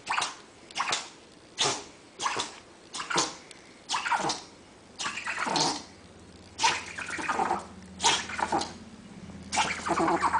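A small dog sneezing over and over, a rapid run of short, sharp sneezes, one or two a second.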